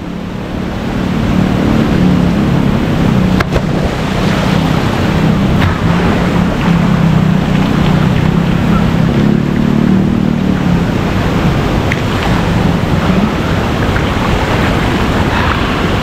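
Steady rush of waterfall water pouring into a pool, with a splash about three and a half seconds in as a body lands in the water.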